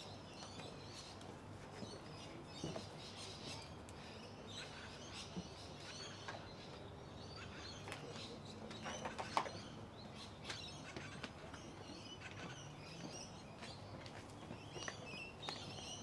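Small birds chirping again and again over quiet outdoor ambience, with a few scattered clicks and knocks, the sharpest about nine seconds in.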